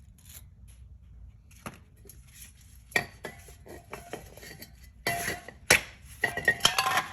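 A metal tool scraping and clinking against the brake caliper housing while it is cleaned: a sharp click about three seconds in, then a run of short scraping, clattering strokes near the end.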